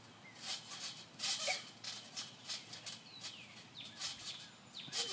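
Trampoline springs squeaking and creaking as children bounce on the mat, in repeated short bursts with a few brief falling squeaks.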